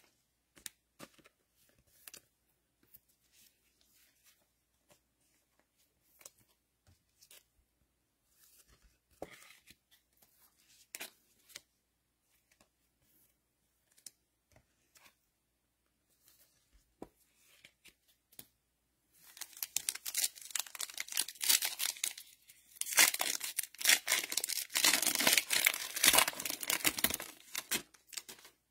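Foil wrapper of a Mosaic football card pack being torn open and crinkled, a dense crackling rustle starting about two-thirds of the way in. Before it there are only faint scattered clicks.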